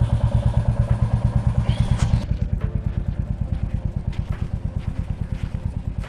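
A small engine idling close by with a steady low putter of about ten beats a second. It gets a little quieter about two seconds in.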